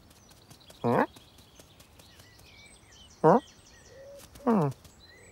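Human-voiced cartoon cat making three short vocal sounds, each falling steeply in pitch, with faint high bird twittering between them.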